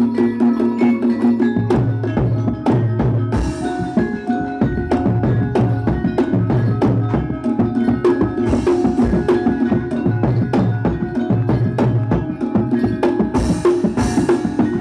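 Live Javanese gamelan music: rapid drum strokes over ringing, sustained metallophone tones, with three brief hissy splashes.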